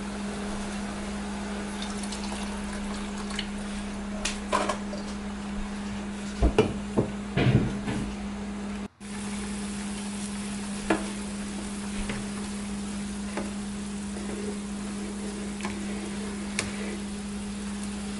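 Chicken curry in a saucepan bubbling and hissing as it heats, over a steady low hum. Between about four and eight seconds in the pot is stirred, with a cluster of knocks and scrapes of a utensil against it, and a few lighter knocks come later.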